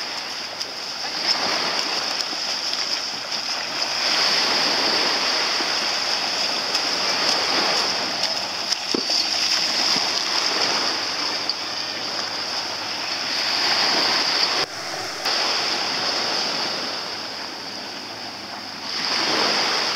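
Shallow seawater sloshing and splashing around people wading beside small sailing dinghies, over a steady hiss.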